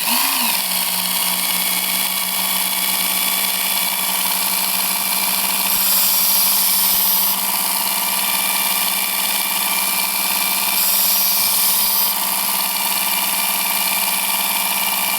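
Work Sharp Ken Onion Elite knife sharpener with the blade grinding attachment, its belt motor spinning up and then running steadily. A knife blade is drawn across the moving abrasive belt twice, adding a grinding hiss about six and eleven seconds in.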